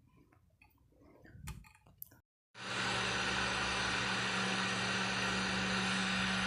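Heat gun running steadily, a constant blowing noise with a low hum underneath, heating metal for casting. It starts abruptly about two and a half seconds in, after a few faint clicks.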